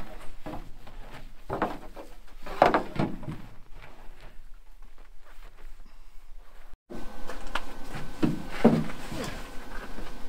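Sponge scrubbing the painted engine lid of a Chevrolet Corvair by hand, in irregular rubbing strokes. After a sudden break about two-thirds of the way through, a few clunks and knocks follow.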